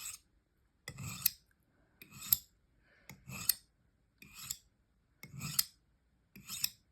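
Knife blade being honed, drawn along a honing rod in repeated strokes. Each stroke is a short metallic scrape ending in a bright ring, about one a second, six times.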